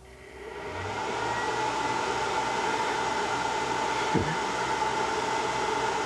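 Cooling fan of a 12 V-to-110 V power inverter spinning up over about a second, then running steadily with a whine, as the inverter takes on a 750-watt lighting load.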